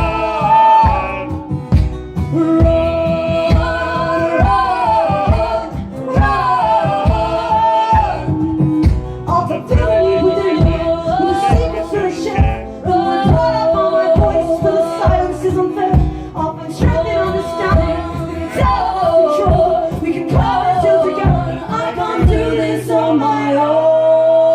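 Live band playing a passage without lyrics: a steady drum beat under held, gliding melodic lines and wordless singing. About 22 seconds in the drums stop, leaving a held low note.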